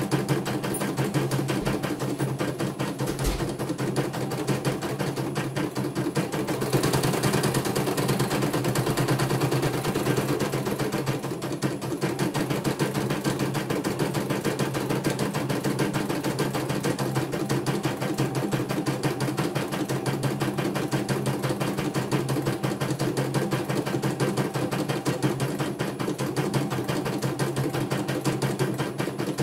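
CNY E900 computerized embroidery machine stitching a design. A rapid, even run of needle strokes sits over a steady motor hum.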